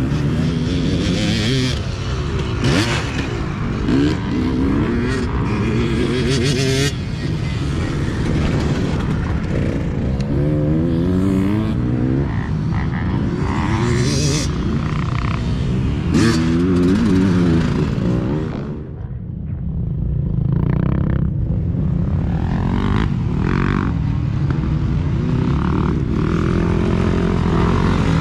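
Dirt bike engines racing on a motocross track, their pitch rising and falling again and again as the riders open and close the throttle and shift gears. The sound briefly drops away about two-thirds of the way through, then a bike comes close near the end.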